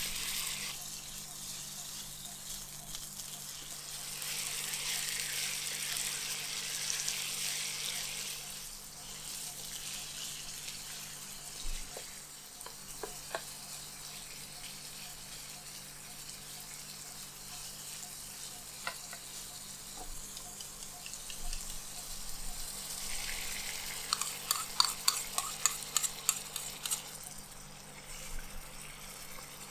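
Food sizzling in a hot pan while it is stirred with a spatula. The sizzle swells twice, and near the end comes a quick run of clattering spatula strokes against the pan.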